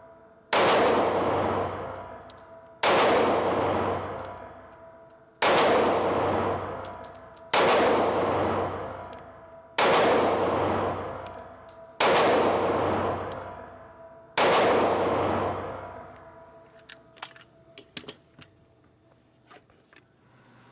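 Taurus G2c 9mm pistol firing 115-grain Blazer Brass full metal jacket rounds: seven shots about two seconds apart, each followed by a long ringing echo. A few light clicks follow near the end.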